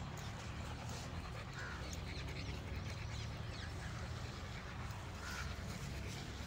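Outdoor background with a steady low rumble and a few short, faint animal calls.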